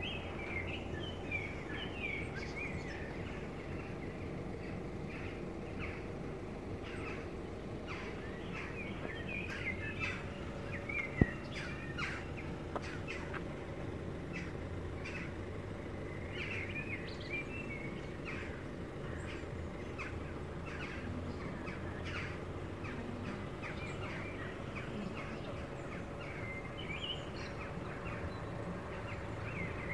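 Small birds chirping and singing over a steady low background rumble, with one sharp click about eleven seconds in.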